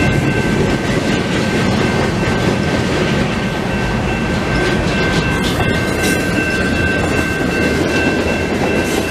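Canadian Pacific freight train's cars rolling steadily past, a heavy rumble with wheels clacking over the rails. A steady high-pitched ringing runs over it.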